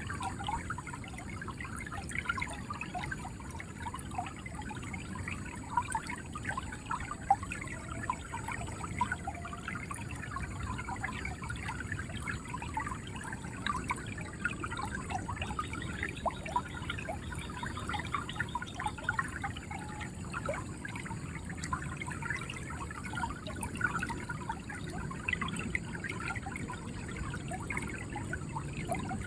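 River water flowing steadily, with continuous gurgling and many small splashes over a low rush.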